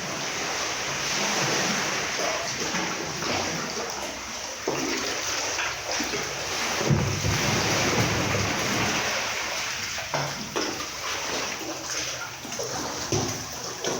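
Sea water splashing and sloshing around a kayak: a steady wash with many small, irregular splashes.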